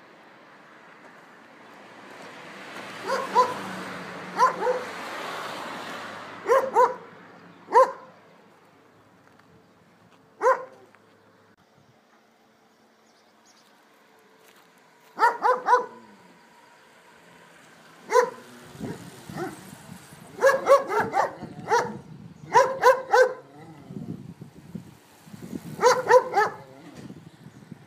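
A dog barking in short, sharp barks, some single and some in quick runs of two or three, with long gaps between. A rushing noise swells and fades under the first few barks.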